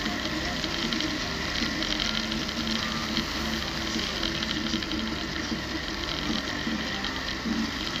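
Steady noise of a vehicle driving along a sand beach: its engine running, with wind rushing over a microphone mounted on the outside of the vehicle.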